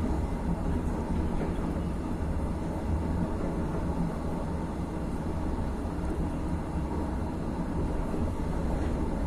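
Steady low rumble of a moving train heard from inside the passenger carriage: the wheels running on the rails, even throughout with no distinct clicks or horn.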